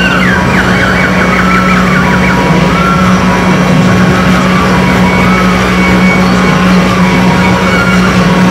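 Loud noise-art soundscape: a steady low drone with warbling, siren-like tones sweeping up and down above it. A quick flurry of high chirps comes in the first two seconds.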